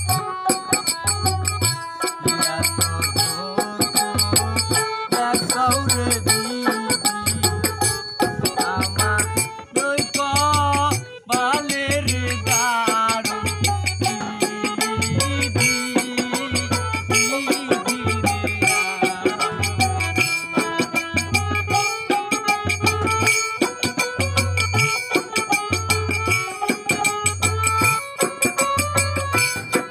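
Bengali folk ensemble playing: a harmonium's held chords over a barrel drum (dhol) beating a steady rhythm a little faster than once a second, with small hand cymbals striking along. A wavering melody line comes in around the middle.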